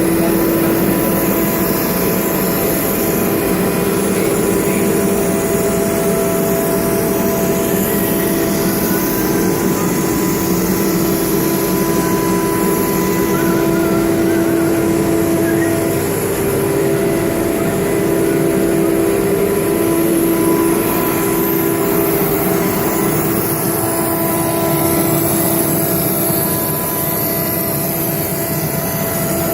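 BCAM CNC router running, a steady machine whine over a noisy hiss; its pitch shifts briefly about halfway through.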